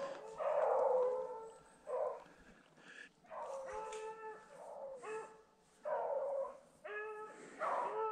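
Beagle baying on the scent line of a snowshoe hare: a string of drawn-out, howling bays about one a second, with short gaps between them. This is the hound running the hare's track.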